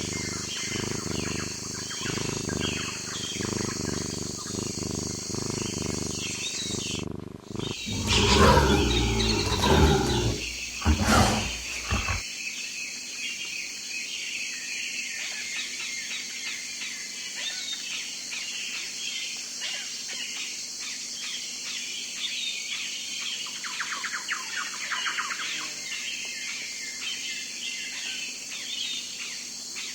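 Wild animal calls in three spliced segments. First comes a run of regular, low pulsing calls, then after a sudden break a few seconds of loud, deep calls. After that the low sound cuts off and birds chirp over a steady high-pitched hum, with a burst of faster chattering calls about three quarters of the way through.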